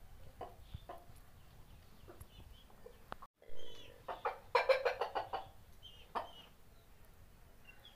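Chickens clucking while a rooster mounts a hen, with short scattered clucks and then a fast run of loud squawking clucks about halfway through. The sound cuts out completely for a moment just before that run.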